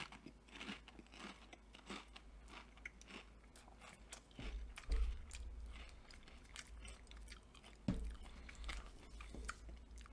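A person chewing Pringles potato crisps close to the microphone: a run of faint, irregular crunches. A couple of louder low thumps come about halfway through and again near the end.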